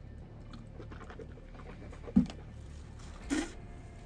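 A person chewing food, with a short low sound about two seconds in and a short breathy noise a little after three seconds.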